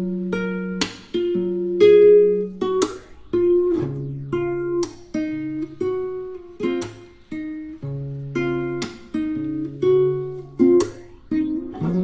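Background music: plucked acoustic guitar playing a slow chord pattern, each note struck and left to ring.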